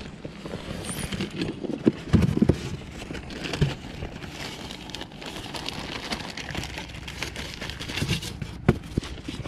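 A plastic zip-top bag rustling and crinkling as hands work inside a foam cooler box. Several sharp knocks and bumps from the cooler and its lid come about two seconds in, near four seconds, and near the end.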